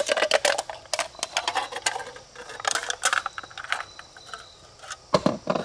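Torn soda cans clinking and rattling against each other as they are rummaged through inside a shot-up cardboard 12-pack box, with two heavier knocks near the end.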